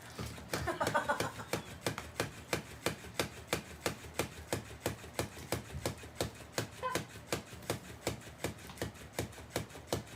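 Motorised flopping toy fish clicking steadily at about four clicks a second as its tail flaps.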